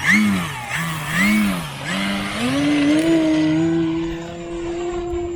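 RC model airplane motor and propeller running close by, its pitch swooping up and down twice as the throttle is worked, then rising about two seconds in and holding steady.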